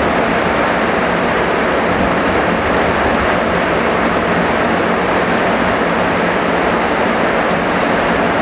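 Heavy rain falling steadily, a dense, even hiss without a break.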